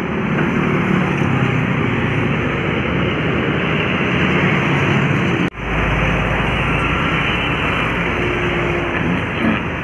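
Road traffic of buses and cars going past: engines and tyres running steadily, with a brief cut-out about halfway through.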